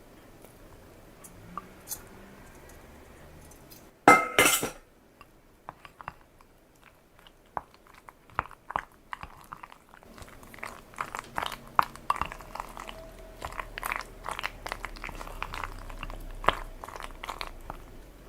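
Crunchy chewing close to the microphone: many small, irregular crunches that grow busier in the second half. A short, loud clink-like clatter about four seconds in.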